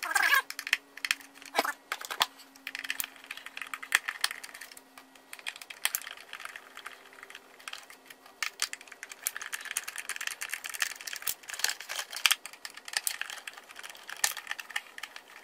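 Irregular clicks, rattles and scraping of hard plastic as a pressure washer's plastic housing shell is pulled and worked loose around its wiring.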